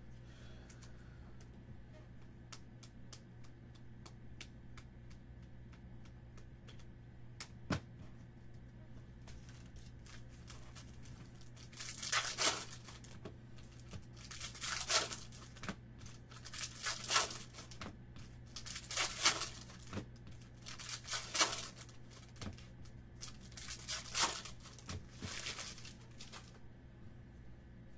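Trading-card pack wrappers being torn open and crinkled by hand: six short tearing bursts about two seconds apart, starting about twelve seconds in. Before that, faint light ticks of cards being handled.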